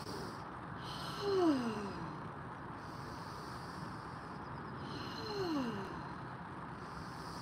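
A woman's voice sighing out a breathy tone that falls in pitch, twice, about a second in and again about five seconds in: the qigong heart sound toned on the out-breath.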